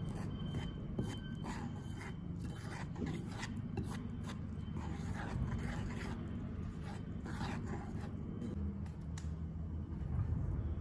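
Chopsticks scraping and stirring against a ceramic bowl, mixing egg, flour and chopped leeks into a thick pancake batter: a quick, irregular run of scrapes.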